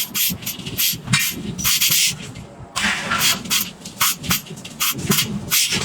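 Forge shop working noise: irregular knocks and clanks mixed with short bursts of hissing, over a low mechanical rumble.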